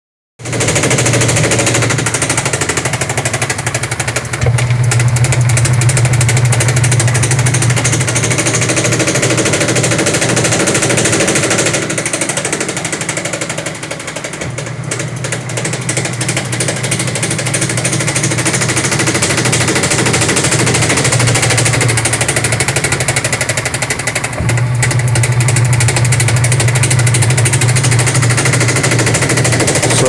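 Sharp automatic washing machine spinning, with a loud, rapid clattering over the motor's hum. The tub is misaligned and strikes the part beside it because the clearance is too small, which is the cause of the very noisy spin.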